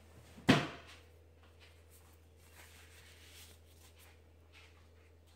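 A single sharp knock about half a second in, then faint rustling and small clicks as hands handle the sausage filling and a plastic piping bag.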